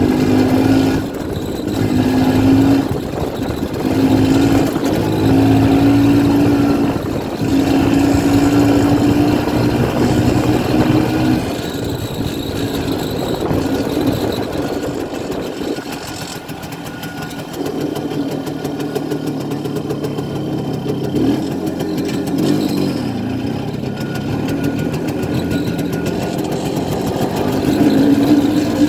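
A 1967 Pannonia P10's 250 cc single-cylinder two-stroke engine running as the motorcycle is ridden, its revs rising and falling with the throttle. The engine note drops back about halfway through and picks up again near the end.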